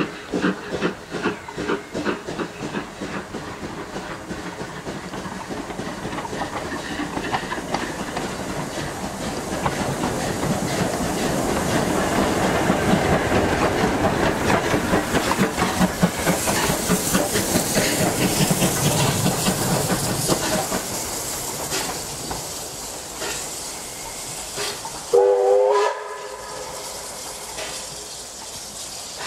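A steam-hauled train running, its carriage wheels clicking in an even rhythm over the rail joints as heard from an open carriage window, growing louder in the middle. About 25 seconds in, the whistle of the USATC S160 steam locomotive sounds once, briefly.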